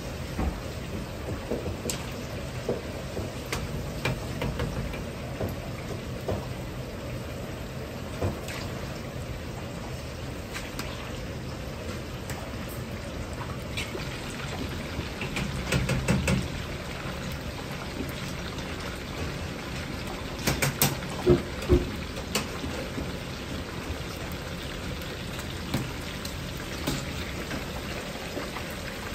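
Starch-coated chicken deep-frying in a wok of hot oil, a steady crackling sizzle. There is a few-second surge around the middle and a few sharp metal knocks a little after.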